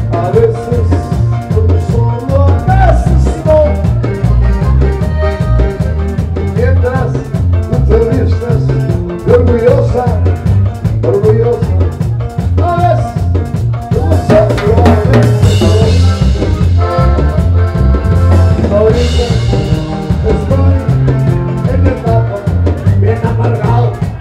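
Live norteño band playing: a Gabbanelli button accordion carries the melody over electric bass, drum kit and acoustic guitar on a steady beat.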